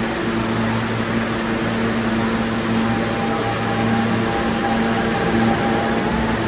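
Steady mechanical hum of a subway station, a low drone with a faint higher whine from about three to six seconds in.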